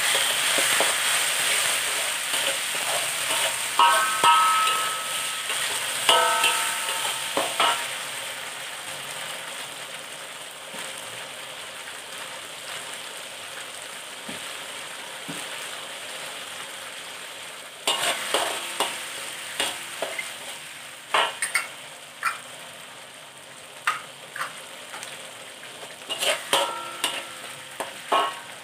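Ground chilli paste sizzling in hot oil in a metal wok, stirred with a metal spatula that scrapes and rings against the pan. The sizzle is loudest at first, just after the paste goes in, and dies down over about ten seconds; later there are bursts of scraping strokes.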